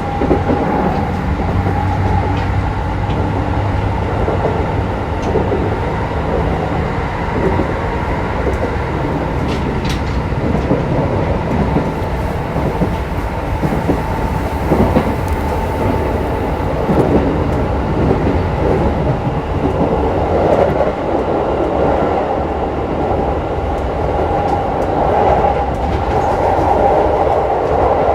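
Keikyu New 1000 series electric train running, heard from inside motor car DeHa 1894-1 with its Toyo hybrid SiC-VVVF traction motors: a steady rumble with a held whine and wheels clicking over rail joints.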